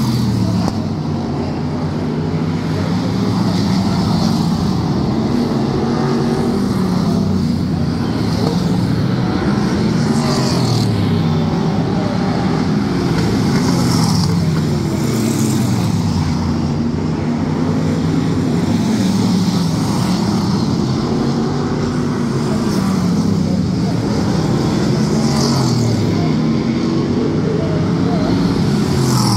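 V8 Hotstox stock car's V8 engine at race speed, its revs rising and falling over and over as it accelerates and lifts through lap after lap of a short oval.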